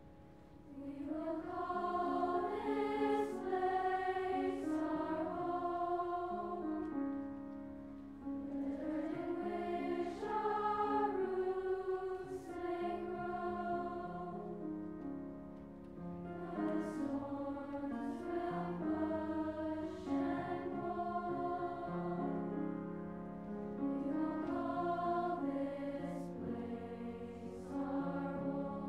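Large middle-school choir singing in harmony with piano accompaniment; the voices come in about a second in, after a quiet piano lead-in.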